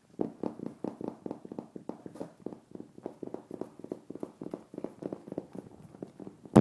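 Paws of a litter of four-week-old Doberman pinscher puppies scampering on a hard floor: a quick, uneven run of small steps, about seven a second, with one sharp knock at the very end.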